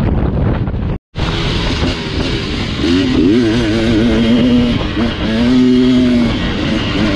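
Wind buffeting the microphone, then, after a sudden cut, a dirt bike engine revving hard, its pitch wobbling rapidly up and down as the throttle is worked over rough ground and holding steady in places.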